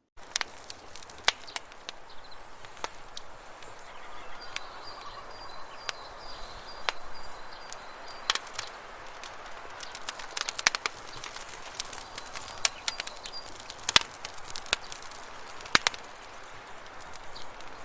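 Outdoor ambience with faint high bird calls and many scattered sharp taps and clicks.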